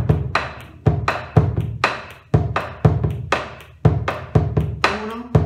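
Argentine bombo legüero played with two sticks, mixing deep strokes on the drumhead with sharp clicks on the wooden rim in a steady 3/4 pattern. The deep strokes come about twice a second. It is the basic 'tipo gato' rhythm (basic form 2), the zapateo norteño accompaniment for gato and chacarera.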